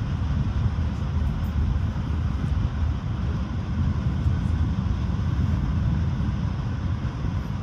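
Steady low rumble and rush of a moving passenger train, heard from inside a ČD InterJet coach (Siemens Viaggio Comfort build) as it runs along the track.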